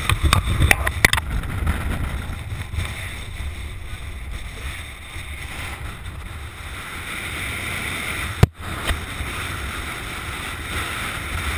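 Wind buffeting a body-worn camera's microphone as a steady low rumble, with a cluster of sharp clicks and knocks in the first second or so and one loud knock about eight and a half seconds in.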